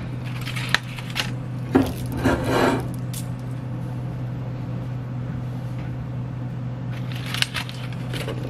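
Aluminium foil pack crinkling and rustling in short bursts as it is handled on a metal baking sheet, the longest burst about two seconds in and another near the end, over a steady low hum.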